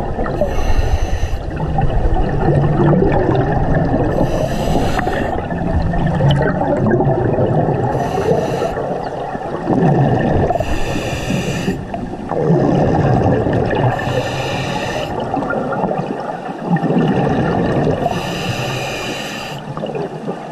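Scuba regulator breathing heard underwater. Six hissing inhalations come every three to four seconds, each followed by the burbling rumble of exhaled bubbles venting from the regulator.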